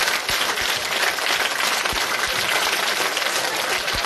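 Many schoolchildren clapping together: dense, steady applause.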